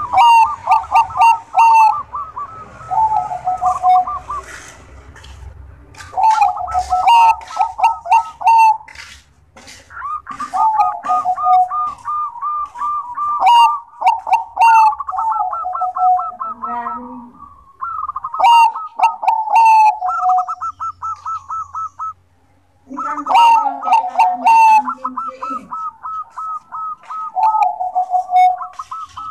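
Perkutut Bangkok, a Thai-bred zebra dove, singing its cooing song: phrases of rapid staccato coo notes, each a second or two long, repeated over and over with short pauses, with one brief silence a little past two-thirds of the way through.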